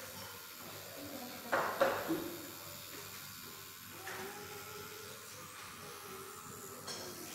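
Tattoo machine running steadily with a faint wavering hum while the needle works into the skin of the neck. A brief louder noise comes about a second and a half in.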